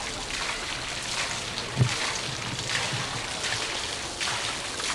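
Steady background noise of an outdoor crowd with faint distant voices, and a single dull thump a little under two seconds in.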